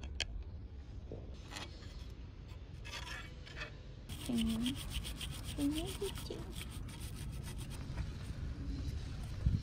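Cloth rag rubbing over the metal parts of an outboard's lower unit while they are cleaned, a fast run of rubbing strokes from about four seconds in. A few light metal clicks of pliers on the driveshaft come before it.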